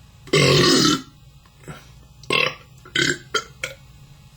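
A man belches loudly for most of a second, then lets out a string of about five shorter burps. The burps are brought up after drinking beer.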